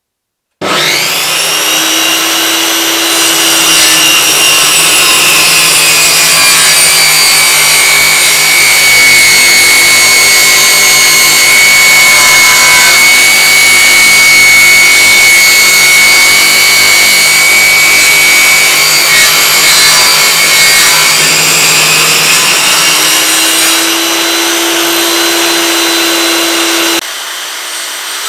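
Bench-mounted table saw with a circular blade ripping a thin strip of wood, running loud with a high whine. The whine drops in pitch as the wood feeds into the blade and climbs back near the end as the cut finishes. The sound breaks off abruptly to a quieter level shortly before the end.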